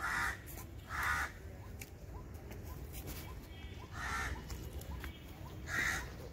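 A crow cawing: four short, harsh caws, two close together at the start and two more about four and six seconds in.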